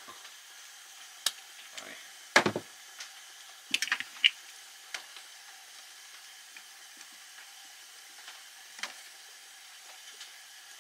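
Small metal parts and hand tools being handled: scattered clicks and knocks while working on a soldered antenna-cable connector. The loudest knock comes about two and a half seconds in and a quick cluster of clicks near four seconds, over a faint steady hiss.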